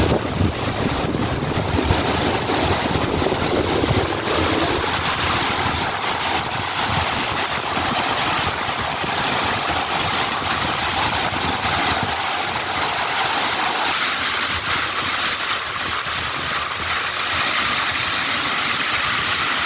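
Steady rush of falling water from a large waterfall, with wind noise on the microphone.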